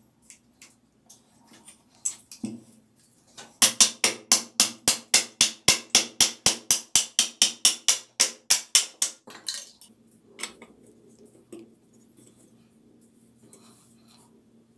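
Hammer striking metal parts of a bicycle handlebar. A few light knocks come first, then a quick, even run of about two dozen sharp blows at roughly four a second, then a couple of lone taps.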